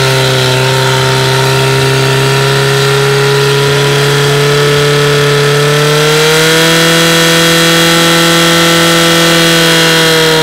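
Fire-sport portable fire pump engine running flat out at high revs, a steady drone that rises slightly in pitch about six seconds in, as it drives water through the attack hoses to the targets.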